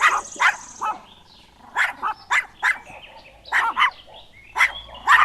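A puppy barking and yelping in quick clusters of short, high calls, two to five at a time with pauses between.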